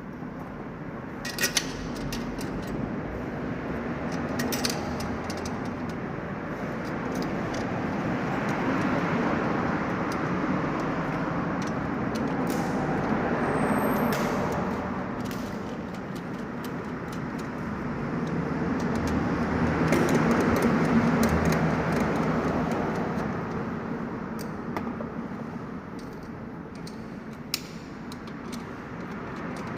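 Road vehicle noise, a steady rush that swells and fades twice, with a few sharp clicks or knocks scattered through it.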